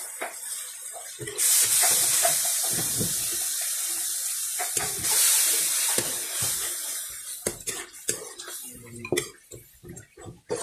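Water poured from a cup into a hot pan of chicken curry, hissing and sizzling for several seconds before dying down. A metal spoon then scrapes and clicks against the pan as the curry is stirred.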